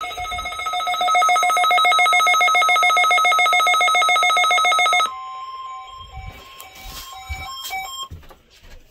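Weather radio alert tones for a NOAA Weather Radio required weekly test. A loud, rapidly pulsing electronic beep sounds for about five seconds and cuts off suddenly, followed by quieter steady and broken tones with hiss.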